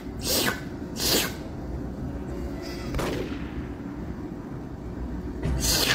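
Short, sharp sneeze-like bursts of breathy noise, four times, the third fainter, over faint background music.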